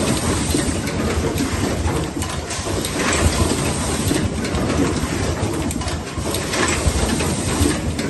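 Automatic power-cord assembly machine running: a steady mechanical clatter with frequent clicks and short bursts of hiss from its air-driven cylinders every second or two.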